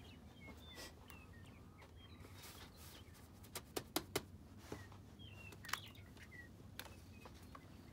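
Small birds chirping faintly in the background, with a few sharp clicks and knocks about halfway through as a rifle and shooting bag are handled at a wooden barricade.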